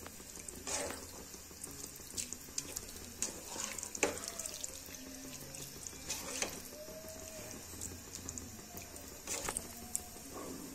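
Plastic slotted spatula stirring boiled cabbage and potatoes in their watery cooking liquid in a pan: wet sloshing with a few short scrapes and taps against the pan.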